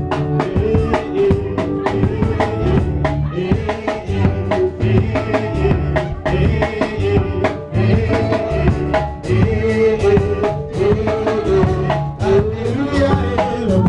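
Live praise-and-worship band playing an upbeat song: drum kit keeping a steady driving beat over electric bass and keyboard, with voices singing.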